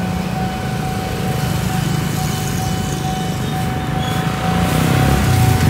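Small motorbike engine idling close by, with other motorbikes running around it. A steady high tone sounds over the engines.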